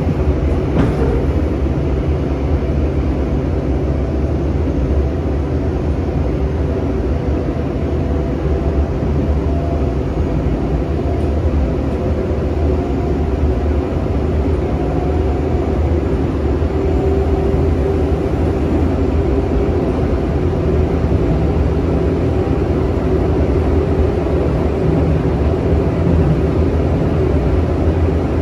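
Steady running noise inside a Seoul Subway Line 3 car moving at speed: a low, even rumble from the train running on the rails.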